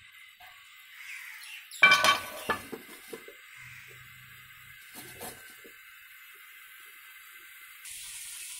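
Stainless steel pot lid clinking against the rim of a cooking pot as it is set in place. There is one sharp ringing clink about two seconds in, then a few lighter knocks.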